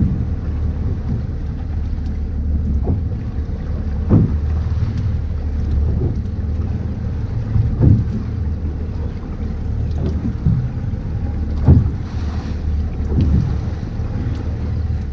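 Fishing boat under way offshore, its engine and the water making a steady low rumble, with a thump every few seconds.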